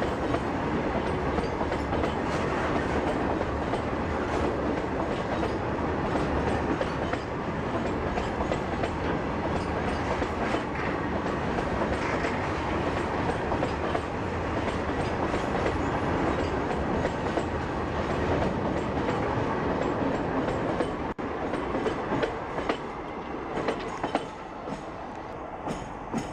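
A freight train of BOX-N covered wagons rolling past, its wheels clattering over the rail joints in a steady, dense rattle that eases off a little over the last few seconds.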